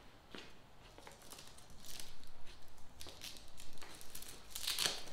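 Irregular scratchy rustling and short ripping sounds of material being handled and pulled apart, louder near the end.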